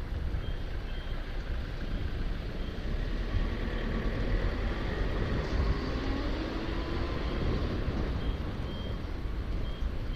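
Traffic rumble and wind on a camera moving along the road behind a road tourist train. A faint short high beep repeats about every half second near the start and again near the end, and a motor's tone rises in pitch around the middle.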